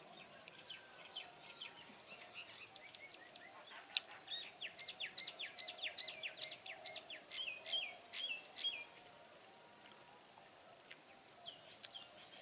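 A songbird singing: a run of quick, high notes, each sliding downward, repeated about three times a second and stopping about nine seconds in, with a few more notes near the end.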